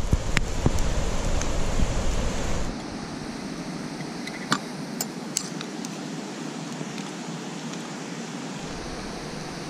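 Steady rushing of a river, with a low rumble for the first few seconds that stops abruptly. A few light metallic clinks of a spoon against a steel camp pot come in the middle.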